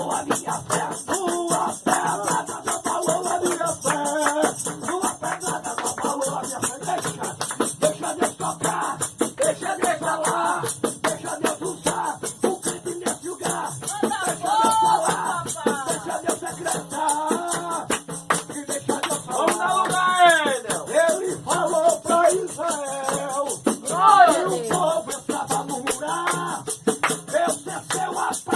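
Church music with a fast, steady shaker rhythm and a singing voice that comes through most strongly in the second half.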